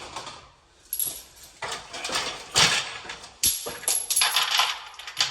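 Small loose metal parts jangling and clinking as they are handled, in a series of irregular rattles with a thin metallic ring over them.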